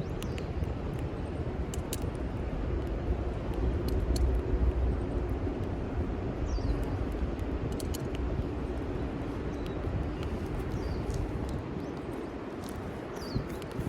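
Strong wind rumbling and buffeting on the microphone. Scattered sharp clicks and three short, high, falling chirps sound over it.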